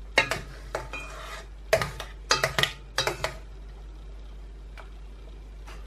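A metal spoon clinking and scraping against a dish in several short bursts during the first three and a half seconds, as soaked trifle sponges are moved about.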